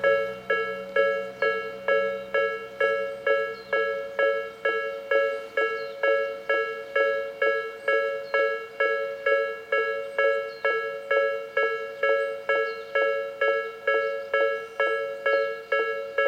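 Japanese railway level-crossing alarm ringing on the Tobu Nikko Line, in the electronic 'Nikko tone': a bell-like chime struck a little over twice a second. Its alarm speakers are heavily out of step with each other.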